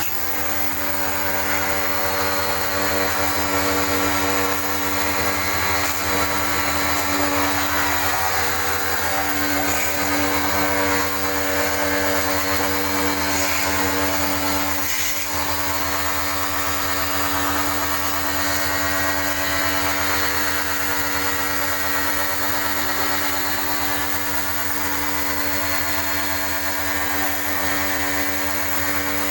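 Small electric pressure washer running steadily for aircon coil cleaning, a steady motor-and-pump hum with a hiss over it, switched on right at the start.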